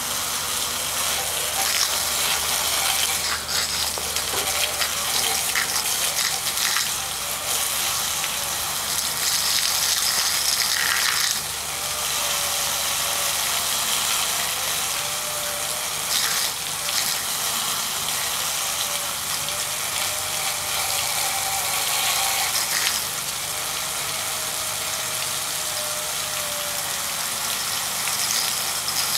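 Jets of water spraying and splashing onto a 120 mm computer fan coated for an IP55 water test, a steady hiss of spray. A faint wavering tone runs under it in the second half.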